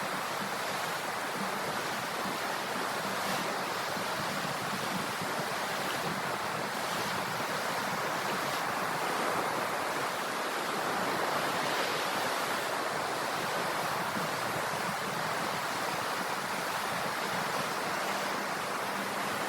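Sea waves washing in as a steady, even hiss of surf, swelling a little in level near the middle.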